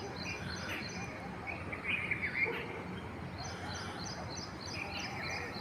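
Small birds chirping over a steady background hiss, with scattered chirps in the first half and a run of quick, evenly repeated high chirps in the second half.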